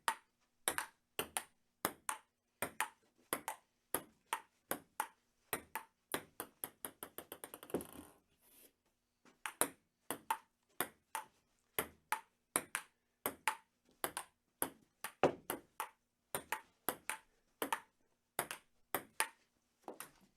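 Table tennis rally: a ping-pong ball clicking back and forth between paddles and table in a steady rhythm. Partway through, a run of bounces comes faster and faster until the ball buzzes to rest. After a short pause, the rally starts again.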